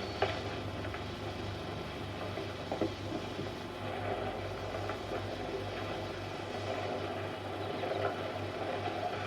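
Eumig S905 Super 8 sound projector running: a steady low motor hum with the rapid, even clatter of the film transport, under a light hiss from the film's soundtrack.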